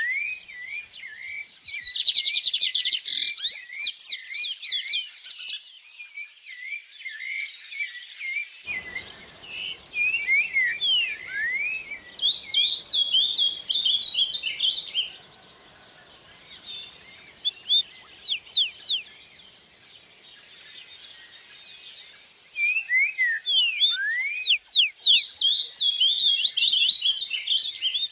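Songbirds chirping and trilling in quick runs of repeated notes, with a few short lulls. A faint rush of stream water joins underneath about nine seconds in.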